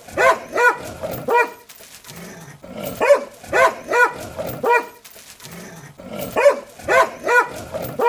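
A dog barking angrily in quick bursts of four or five barks, with short pauses between the bursts.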